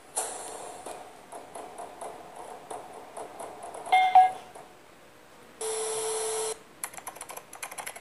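Intro-graphic sound effects: a sudden hit at the start trailing into a string of light ticks, a bright chime about four seconds in, and a buzzy electronic beep lasting about a second. Near the end comes a rapid run of typewriter keystroke clicks as on-screen text is typed out.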